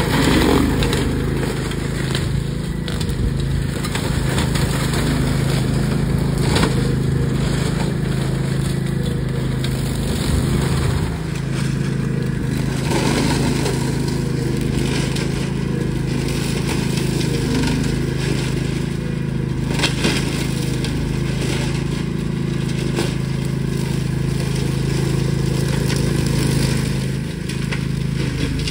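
Rabbit RM983X mower's engine running steadily as its cutters chop through undergrowth and branches, with scattered cracks and snaps of breaking wood.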